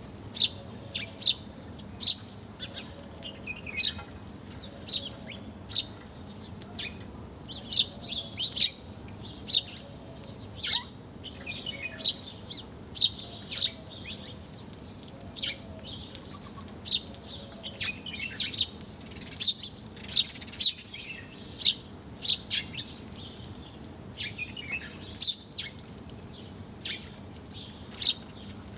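Small birds chirping: short, sharp, high chirps come irregularly, about one or two a second, sometimes in quick clusters.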